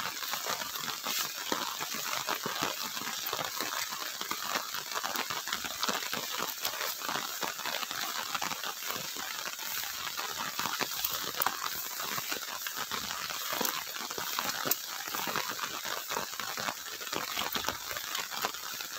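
Footsteps swishing and crackling through dense weeds and leafy ground cover: a continuous, irregular rustle of leaves and stems.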